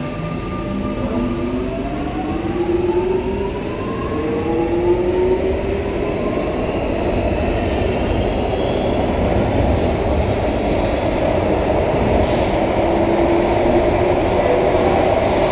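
Singapore MRT C751A train's Toshiba IGBT-VVVF traction inverter and motors whining as the train pulls away and accelerates: several tones rise together in pitch, then level off about halfway through. Wheel and running rumble grows steadily louder underneath.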